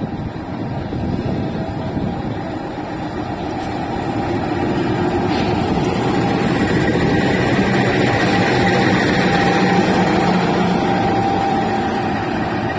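CC206-class (GE C20EMP) diesel-electric locomotive's engine running as it rolls slowly past at close range, growing louder as it draws level and then easing slightly.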